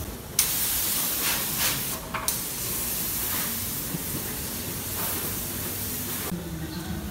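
Hissing spray jet, switched on suddenly, cutting out for a moment about two seconds in, then running steadily until it shuts off near the end.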